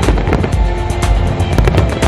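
Fireworks bursting and crackling many times a second with a deep low rumble, mixed with loud music with held notes.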